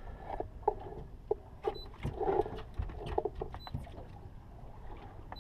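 Small boat drifting, with water slapping against the hull, scattered knocks and a low steady rumble. A few faint, short, high-pitched beeps sound now and then.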